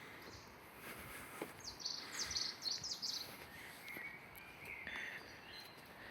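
A small songbird singing a quick run of sharp, high, chirping notes, then a few softer lower notes, over quiet woodland background.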